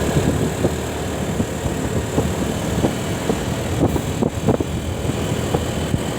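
Bus engine running steadily, a dense low rumble with scattered crackles.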